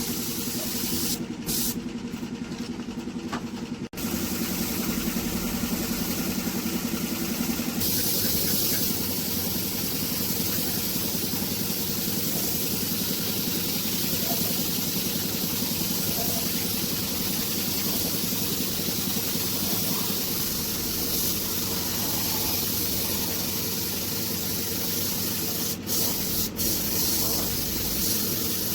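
Paint spray gun hissing steadily over the running hum of an air compressor. The spray hiss stops briefly about one to four seconds in, then comes back stronger.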